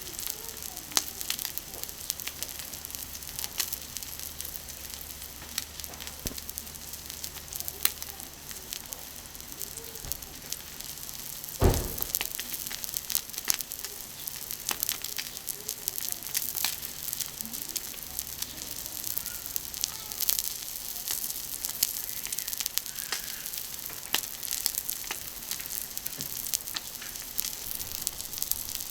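Beef steak sizzling on a hot iron griddle over a wood fire, with frequent small crackling pops of fat. One sharp knock about twelve seconds in.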